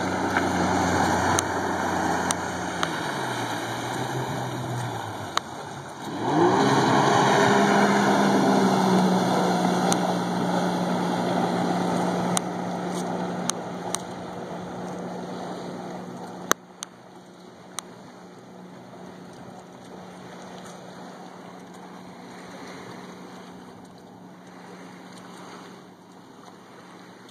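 2005 Sea-Doo RXT jet ski's supercharged four-stroke engine. It runs close by and eases off, then opens up to full throttle about six seconds in with a rising pitch. It holds a steady high note as the craft speeds away and grows faint.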